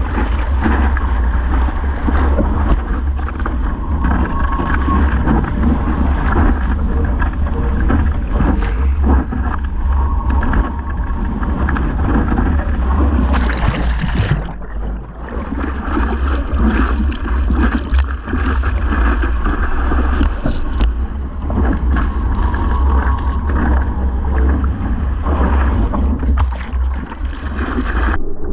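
Seawater splashing and rushing around a surfboard-mounted action camera as a surfer paddles through rough surf, over a heavy low rumble. The sound goes dull for a moment about halfway through as the camera dips underwater.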